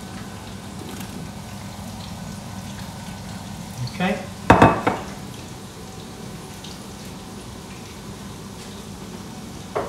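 Hot oil in a wok sizzling steadily as pieces of chicken kara-age deep-fry.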